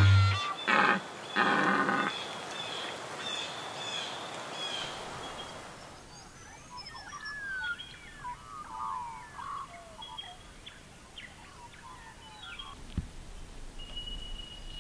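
Two short loud hits that close a logo jingle, then birds calling in bushland: many short whistled and chirping calls over a quiet background, with a steady high note near the end.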